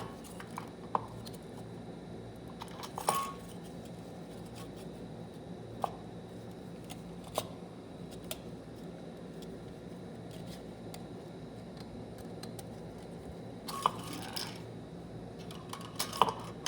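Scattered light metallic clicks and clinks of TH400 transmission valve-body parts being handled and fitted on the bench, a few grouped together about three seconds in and again near the end, over a steady low hum.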